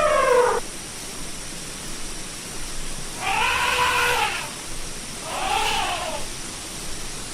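Elephant trumpeting: the end of a long, drawn-out call that drops in pitch in the first half-second, then two shorter calls of about a second each that rise and fall in pitch.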